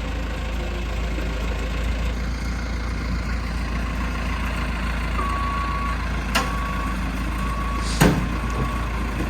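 A heavy vehicle's engine running steadily. From about five seconds in, a high steady beeping tone with short breaks sounds over it, and there are two sharp knocks in the second half.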